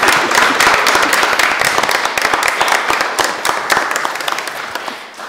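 Audience applauding, a dense stream of hand claps that thins out and dies down near the end.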